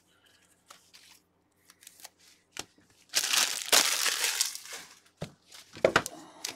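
Plastic wrapper of a trading-card pack crinkling for about two seconds as it is handled, with a few soft taps of cards on the table mat before and after.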